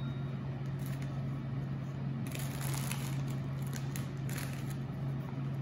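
Faint rustling and crunching of biscuits being placed and pressed by hand into batter in a glass baking dish, over a steady low hum.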